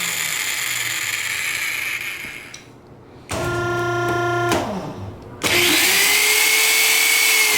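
Power drill driving a self-drilling steel screw (M5.5x55). The drill runs with a gritty drilling noise, goes nearly quiet just under three seconds in, then whines at a steady pitch for about a second before winding down. It restarts about halfway through and runs loudly at a steady high speed.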